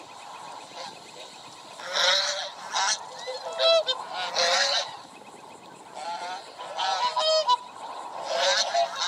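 Waterfowl calling: a series of harsh, pitched honking calls in about seven short bursts, starting about two seconds in, some of them rapidly pulsed.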